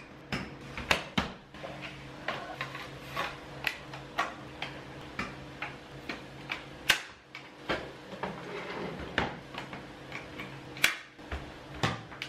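Plastic clicks and knocks of a Dyson cordless stick vacuum being handled and assembled by hand: the wand, cleaner head and main body clicking into place and tapping against each other. The clicks come irregularly, one or two a second, some in quick pairs.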